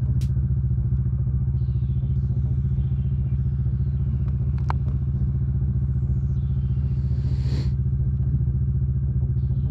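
Suzuki V-Strom 650 XT's V-twin engine running at a steady, unchanging speed.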